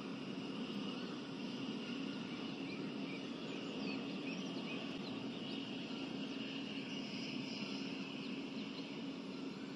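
Steady outdoor background: a constant low hum with faint, short bird chirps scattered through.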